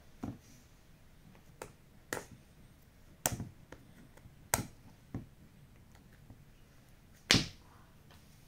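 Sharp crackles and clicks of plastic shrink wrap being cut and handled on a smartphone box, about seven at irregular intervals, the loudest near the end.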